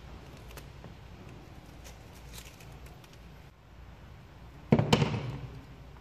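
Hands working vinyl wrap film over a car grille on a table, with faint ticks and rustles. About five seconds in comes a loud sudden knock, twice in quick succession, dying away over about half a second, as tools are handled.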